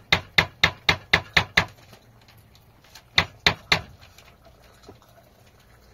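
A quick run of sharp knocks or taps, about four a second, stopping after under two seconds, then three more about three seconds in.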